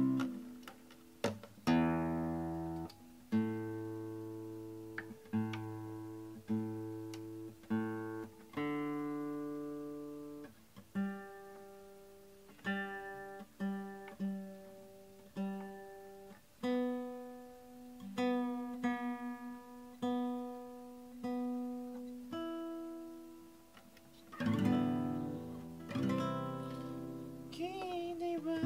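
Acoustic guitar played slowly by hand: single notes and chords plucked about once a second, each ringing and then dying away, with a busier run of chords near the end.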